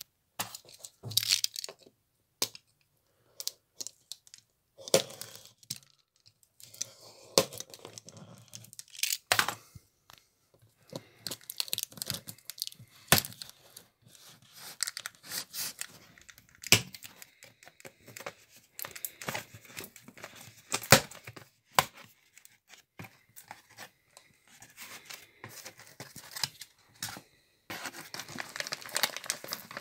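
Packing tape being peeled and ripped off a cardboard box in short, irregular tears, with clicks and scrapes from the cardboard flaps. Near the end comes a denser crinkling of a plastic bag being handled inside the box.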